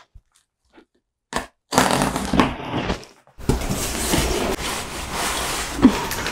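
Rustling, crinkling handling noise in two stretches, after a single click about a second and a half in, with a brief sharp sound near the end.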